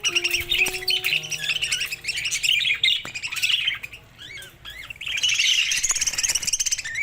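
Budgerigars chattering in fast, continuous chirps and squawks. The chatter drops off briefly about four seconds in, then resumes loudly. A few held background-music notes play under it in the first second or two.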